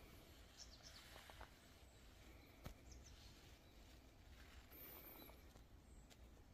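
Near silence: faint outdoor ambience with a few faint, short high chirps, one soft click about halfway through, and a light rustle of dry leaves about five seconds in.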